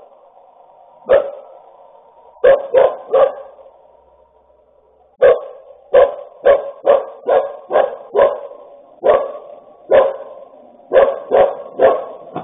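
A dog barking in short, sharp barks: a few single and clustered barks at first, then a faster run of about a dozen from about five seconds in, as if raising the alarm at someone approaching. The sound is thin and cut off in the highs, as picked up by a security camera's microphone.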